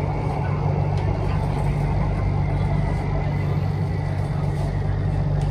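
Cabin noise of an EMU-A1 Skytrain electric train running: a steady low hum and rumble with a faint high whine held at one pitch.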